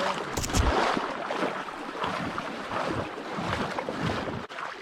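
Water sloshing and splashing, with wind buffeting the microphone and a couple of low thumps about half a second in.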